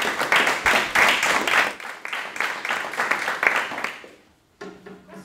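A small audience applauding with hand claps, dying away about four seconds in.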